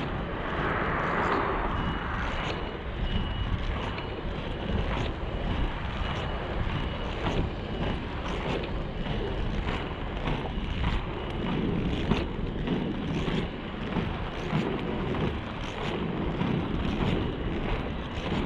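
FR325 inline skate wheels rolling over rough asphalt: a steady gritty rolling noise with regular faint clicks from the strides, and wind rumbling on the microphone.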